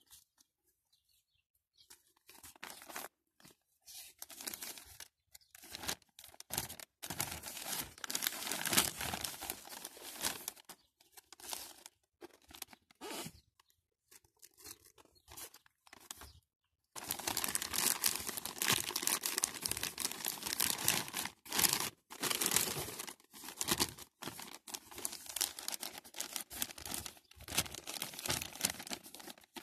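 Close rustling and crunching of dry soil being pressed and worked by fingers at the base of a seedling's stem, coming in irregular stretches with short gaps and growing denser about halfway through.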